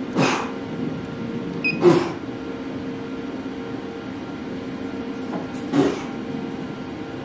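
Steady hum of a Thunder Laser CO2 engraver standing ready, with three sharp clicks as buttons on its control panel are pressed to load and start a rotary test job, and a short high beep a little under two seconds in.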